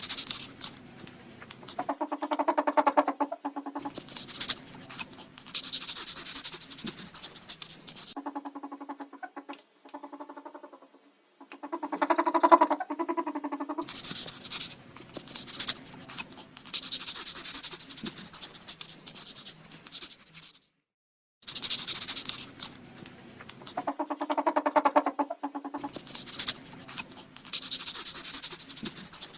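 Ferret vocalizations in a series of short clips: stretches of pitched, rapidly pulsing clucking alternate with noisier, hissy stretches, with a brief silent break about two-thirds of the way through.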